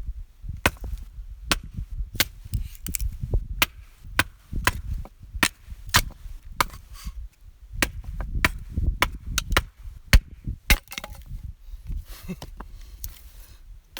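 Firewood being chopped into small kindling pieces: repeated sharp strikes on wood, irregular, about one to two a second, over a low rumble.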